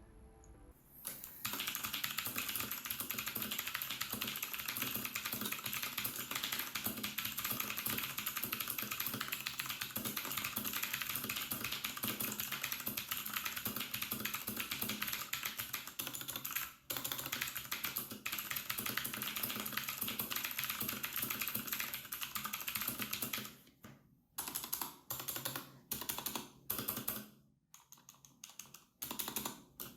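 Typing on a Rakk Sinag 87MX tenkeyless mechanical keyboard with clicky Cherry MX Blue switches: a fast, continuous clatter of key clicks that breaks, about 23 seconds in, into short separate bursts of keystrokes.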